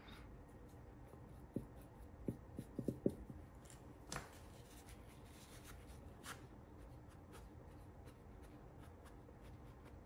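Faint taps and light scratching of a flat paintbrush working a watery wash over a textured art panel, then a paper towel dabbing it back. There is a cluster of soft taps between about one and a half and three seconds in, and two more around four and six seconds.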